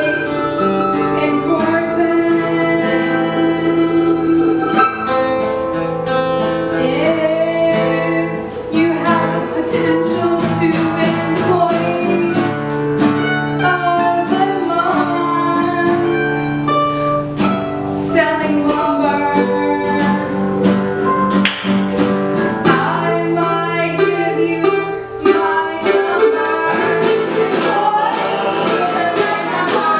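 Music with singing: a song with plucked-string accompaniment and held sung notes.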